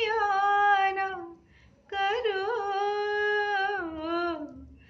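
A woman sings a ghazal unaccompanied, holding two long, ornamented notes. The first falls away after about a second; after a short breath the second is held for about two and a half seconds and slides down at its end.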